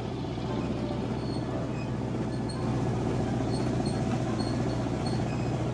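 Motor vehicle running steadily, a continuous low rumble with a steady hum, with short high chirps at intervals.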